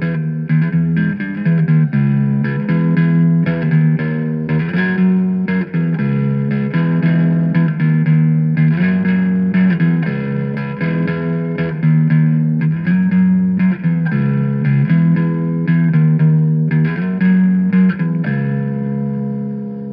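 Guitar music with bass, chords changing in a steady rhythm; near the end a final chord is left to ring out.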